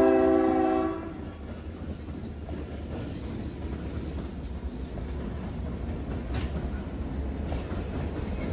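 A diesel locomotive's multi-chime air horn sounds a chord that cuts off about a second in, then the locomotive rumbles steadily, its wheels clacking over the rail joints as it passes.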